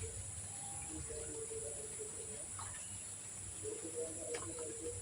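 Steady high-pitched chirring of insects such as crickets, with a few faint ticks and short calls underneath.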